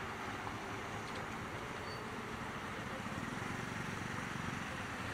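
Motorcycle engine running at low speed as the bike rolls slowly over a wet street, under a steady hiss. The low engine pulsing grows a little about halfway through.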